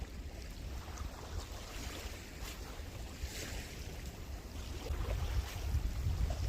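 Wind buffeting the microphone in a low rumble, with the hiss of sea waves washing in and swelling about halfway through.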